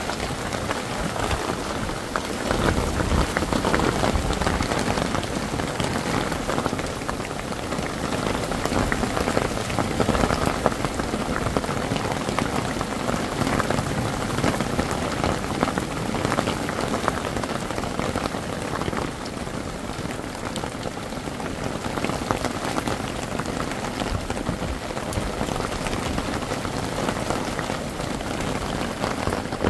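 Hard rain pouring down steadily, a dense patter of drops heard from under a tarp awning.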